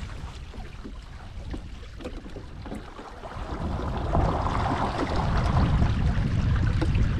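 Water washing along the hull of a Hobie Mirage Tandem Island under sail, with wind rumbling on the microphone. Both grow louder about halfway through.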